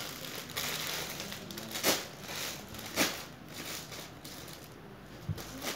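Plastic bag and plastic wrapping crinkling and rustling as hands dig through it, with two sharper crackles about two and three seconds in, then quieter near the end.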